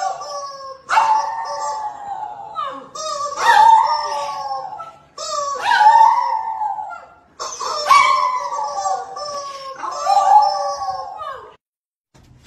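A small dog howling, a run of drawn-out calls of about two seconds each that waver and fall in pitch; they stop abruptly about a second before the end.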